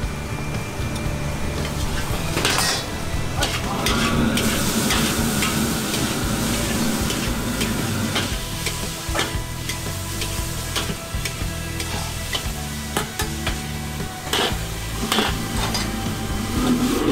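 Shrimp stir-frying in a wok over a restaurant wok burner: steady sizzling, with a metal ladle repeatedly scraping and knocking against the wok. The sizzle grows louder about four seconds in, then settles.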